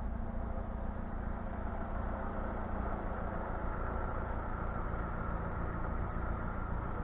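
A steady, unchanging low engine-like hum with no sudden sounds.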